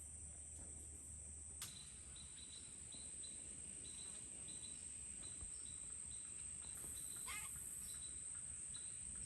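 Insect chorus: a steady high-pitched buzz of insects, joined about a second and a half in by short chirps repeating a few times a second. A single click comes in at the same moment, and a brief wavering bird call comes near the seven-second mark.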